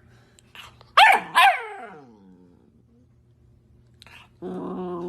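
A puppy barking: two loud, high barks about a second in, each falling sharply in pitch, then a longer, lower drawn-out call near the end.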